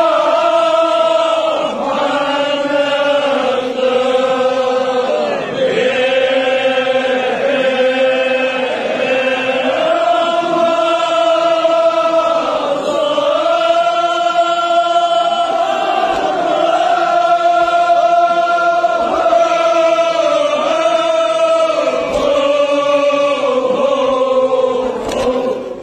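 A group of men chanting a devotional chant together in long, drawn-out melodic phrases. The chant stops just before the end.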